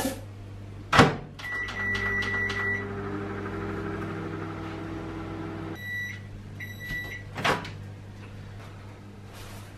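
Microwave oven in use. Two knocks as the door is shut are followed by a quick run of keypad beeps, then the oven hums steadily for about four seconds. The hum stops abruptly, with a couple of beeps and a clack as the door is opened.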